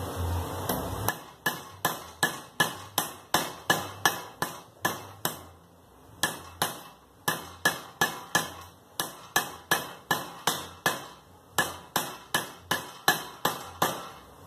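Hand hammer striking a small metal strip clamped in a steel bench vise, sharp ringing metal-on-metal blows at about three a second, starting about a second in, with two brief pauses.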